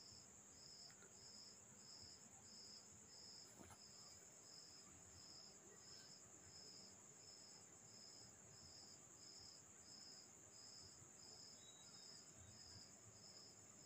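Near silence with faint crickets: a steady high trill and a high chirp repeating evenly, about three chirps every two seconds.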